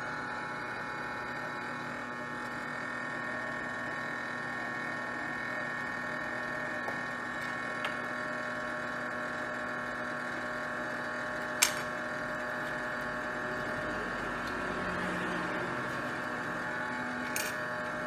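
Hot air rework station's blower running with a steady whine made of several fixed tones, as heat is put on the BIOS chip for resoldering. A few sharp clicks break in, the loudest about two-thirds of the way through.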